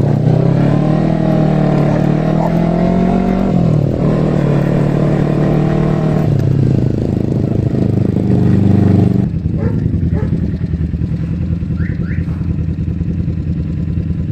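Kawasaki Eliminator motorcycle engine running on the move, its note dipping and picking up again twice. About nine seconds in it falls to a lower, quieter steady note.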